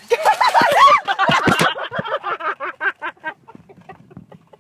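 A person shrieks for about a second, then laughs in a quick run of short bursts that fade out.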